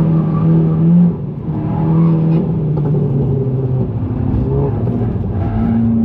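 GTI engine under hard driving on track, its note holding steady and then stepping to new pitches as it lifts and changes gear, with a brief drop in level just after a second in.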